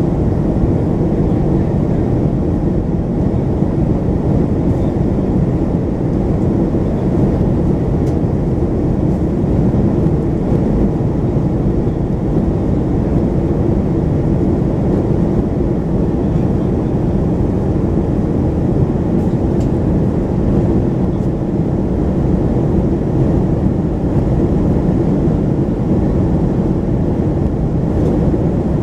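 Steady cabin noise inside a Boeing 737-500 in flight: its CFM56-3 engines running and air rushing past the fuselage, a deep, even drone with no change in level.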